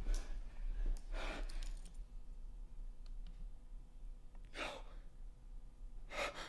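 A person breathing heavily, three audible breaths a few seconds apart, with two faint clicks near the middle.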